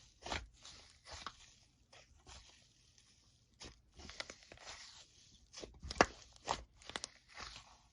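Slime being squeezed and stretched by hand: irregular crunchy, crackling noises with sharp clicks and pops, the loudest about six seconds in.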